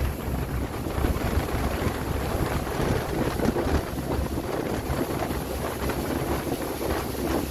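Heavy wind buffeting the microphone aboard a boat on choppy water: a gusty, uneven rushing noise with a strong low rumble.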